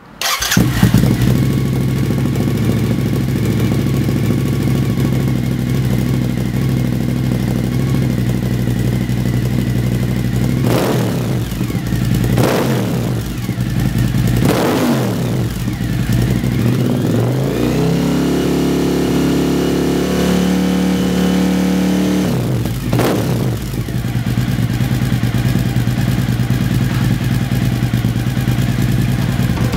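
2003 Suzuki SV1000's V-twin engine running through Lextek aftermarket silencers. It idles, gives three quick blips of the throttle about a third of the way in, then climbs to a held higher rev that drops back to idle after a few seconds. After one more blip it settles to a steady idle.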